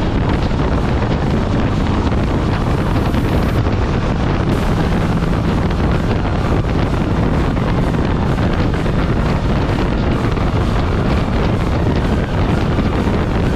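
Loud, steady wind rushing over the microphone of a moving motorcycle, drowning out other sounds.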